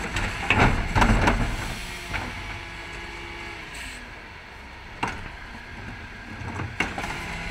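Terberg bin lift on a Dennis Elite 6 refuse truck tipping two wheelie bins: loud bangs and clatter in the first second or so as the bins are shaken out at the top, then the steady hum of the truck and lift as the bins come back down. Two sharp knocks follow, about five seconds in and again near the end, as the bins reach the bottom and are handled off the lift.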